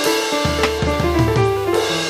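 Outro music: an upbeat instrumental with keyboard melody, bass and a full drum kit with cymbals.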